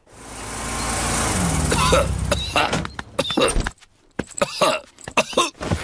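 Cartoon car sound effect that swells as it drives up and stops in the first couple of seconds, followed by a run of short coughs.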